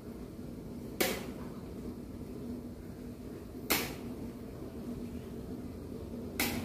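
Metal spatula stirring thick coconut-milk rendang in a large wok, knocking sharply against the wok three times, about two and a half seconds apart, over a steady low background noise.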